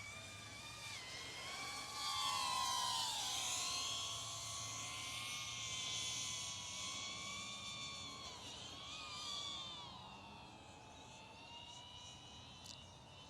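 iFlight ProTek35HD cinewhoop quadcopter's motors and ducted 3.5-inch propellers whining in flight, the pitch rising and falling with throttle. It is loudest a couple of seconds in, then fades toward the end.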